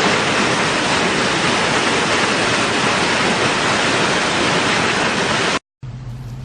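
Waterfall: loud, steady rushing of falling water. It cuts off suddenly near the end, and a quieter rushing with a steady low hum follows.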